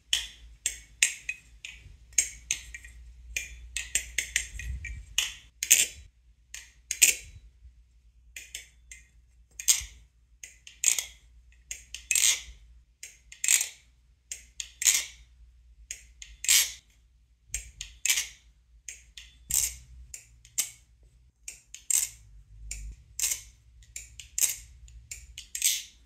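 Teflon-coated Nabalis Vulp balisong being flipped: its handles clack sharply against each other and against the tang as they swing open and shut, in irregular runs of quick clicks, often several a second.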